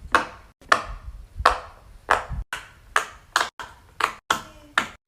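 Square silicone pop-it fidget toys being handled: about eight sharp clicks, roughly one every two-thirds of a second.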